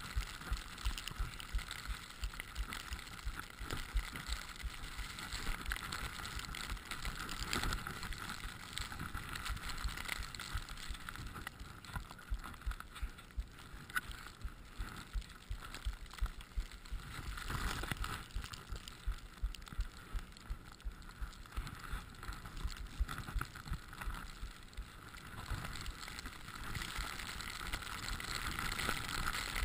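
Skis running through deep powder snow, a steady rushing noise with frequent short knocks and taps, picked up by a GoPro on the skier.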